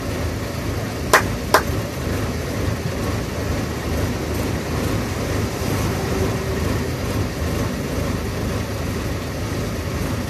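Steady running noise of a bus in motion, heard from inside the cabin: low engine rumble and road noise. Two sharp knocks come about a second and a second and a half in.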